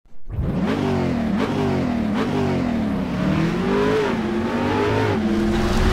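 A car engine revving: a few short revs that rise and drop back, then a longer climb in pitch through the middle, settling into a steadier note near the end.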